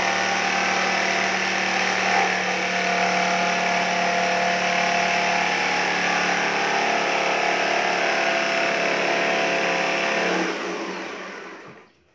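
Electric jigsaw running steadily with its blade cutting through a plywood sheet, then stopping and winding down near the end.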